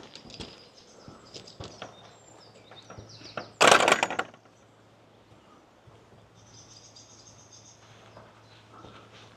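Walkers' footsteps with small birds chirping, and a sudden loud rush of noise lasting under a second about three and a half seconds in.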